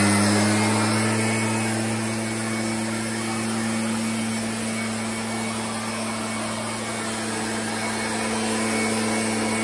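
Leaf blower running steadily at full speed, its pitch settling just after the start, as it blows pine needles off a shed roof.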